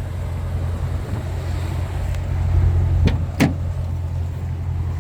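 A car door's latch and handle clicking twice in quick succession about three seconds in, over a steady low rumble.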